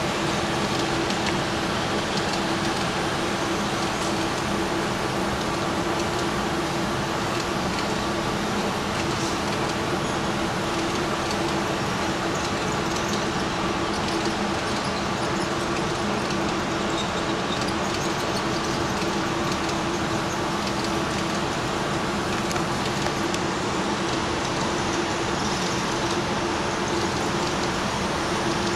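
Model Union Pacific DDA40X diesel locomotive running along layout track with its passenger cars: a steady running hum with a constant tone under a wash of wheel and motor noise.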